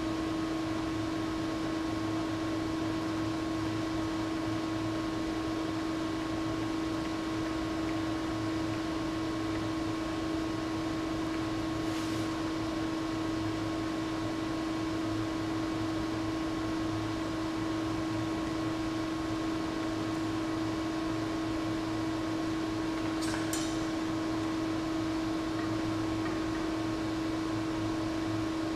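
A steady, unchanging hum with a constant mid-pitched tone and fainter overtones above it, with two faint clicks, one about halfway through and one near the end.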